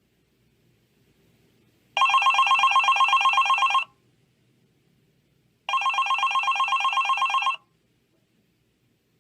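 Telephone bell ringing twice, each ring a rapid trill lasting about two seconds, with a pause of nearly two seconds between them.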